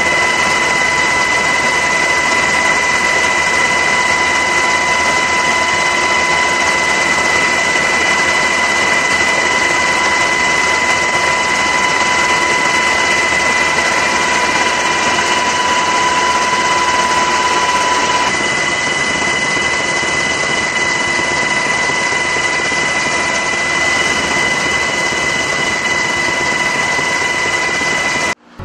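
Steady aircraft noise heard from inside the cabin: an even, loud rush with two high steady whines, the lower of which stops about two-thirds of the way through. The sound cuts out abruptly just at the end.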